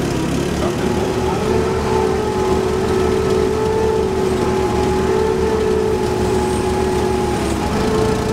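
Forklift engine running under load as it lifts one side of a steel aircraft cradle. The engine speeds up about a second and a half in, holds a steady whining pitch, and drops back near the end.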